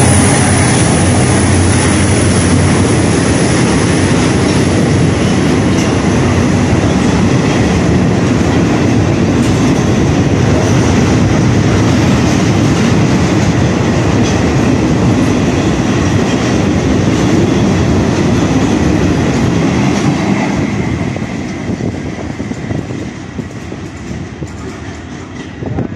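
Freight train of loaded container flatcars rolling past: a steady rumble of steel wheels on the rails. It fades away from about twenty seconds in as the last wagons pass and the train draws off.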